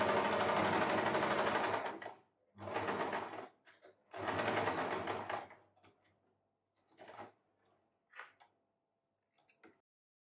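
Usha Janome electric sewing machine stitching a sleeve seam in three runs: a long run of about two seconds, then two shorter runs of about a second each with brief pauses between them. A few faint short sounds follow as the fabric is handled.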